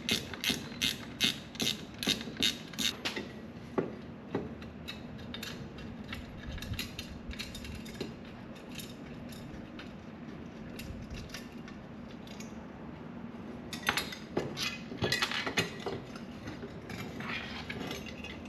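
Socket ratchet wrench clicking in rapid strokes as a 10 mm bolt is turned, then scattered clicks and a second run of ratcheting near the end, over a faint steady hum.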